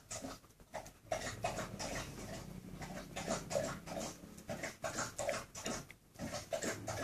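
Dog making short, quick breathing and mouth noises, several a second and irregular, as it nuzzles and mouths a small animal.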